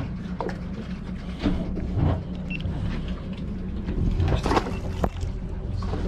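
Boat engine idling, a steady low hum, with a few short, sharp knocks over it.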